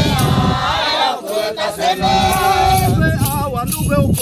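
Hadza men singing a chant together, several voices at once, with their feet stamping on the ground as they dance.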